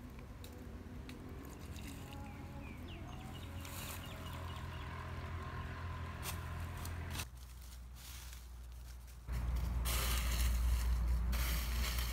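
Low wind rumble on the microphone. About nine seconds in, a louder rustling scrape of dry leaves and soil being cleared by hand.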